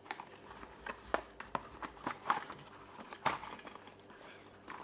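Scattered light clicks, taps and rustles of a cardboard model-train box and its plastic packaging being handled and the box's end flap worked open, with a few sharper clicks in the middle.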